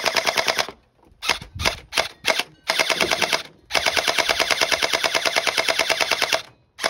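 Electric Glock-style gel blaster firing gel balls from a drum magazine in rapid full-auto bursts, loud, at about ten shots a second: a short burst, a few single shots, then a long burst of nearly three seconds.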